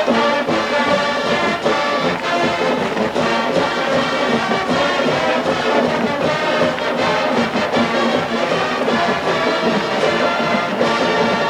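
College marching band playing, with the brass carrying held chords over a steady beat.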